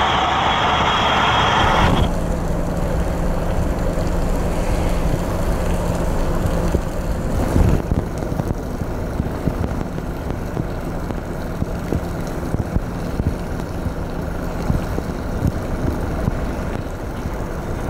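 Flying Cat 4 high-speed catamaran under way. For about the first two seconds its engines and churning wake make a loud, close whine and rush. Then the sound drops abruptly to a more distant, steady engine rumble with a low hum.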